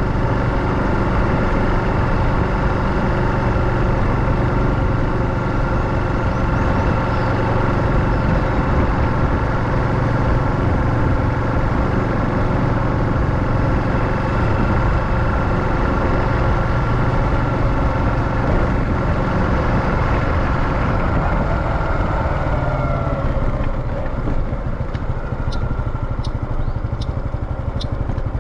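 Honda Super Cub 110 (JA59) single-cylinder four-stroke engine running at a steady cruising speed. Near the end the engine note falls as the bike slows, and a few light, sharp clicks come in.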